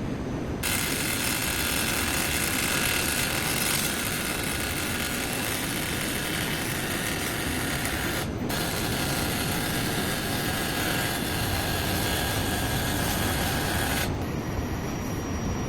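TIG welding arc giving a steady high hiss. It stops briefly about eight seconds in, is struck again, and cuts off about fourteen seconds in, over a steady low rumble.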